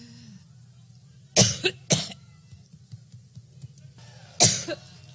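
A woman coughing into a handheld microphone: two coughs close together about a second and a half in, then another near the end, over a steady low background rumble.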